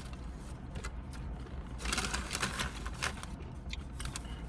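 Eating and food-handling noises: scattered small clicks, with a rustling scrape about two seconds in, over a steady low rumble.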